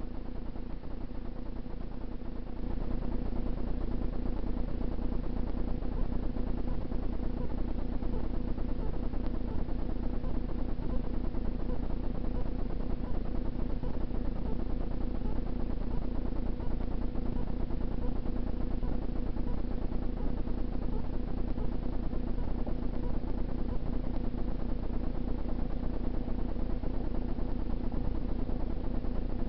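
Steady low rumble with a constant hum, a little louder from about two and a half seconds in.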